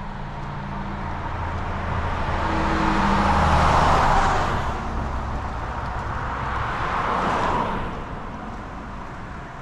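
Two cars passing by one after the other: the first is loudest about four seconds in, the second about seven seconds in, each rising and fading away.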